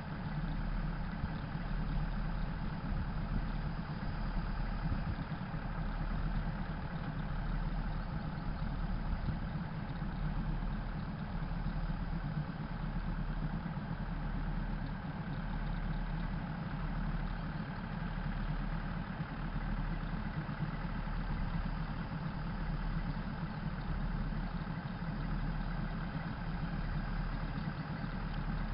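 Diesel engine of a State Railway of Thailand diesel railcar idling steadily at the platform, a continuous low rumble.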